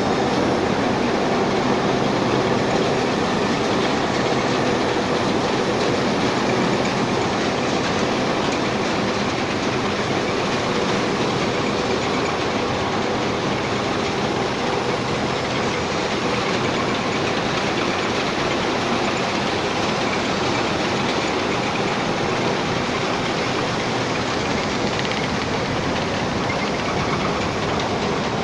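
Screw sand washing machine running: a steady heavy mechanical rumble with a continuous clatter.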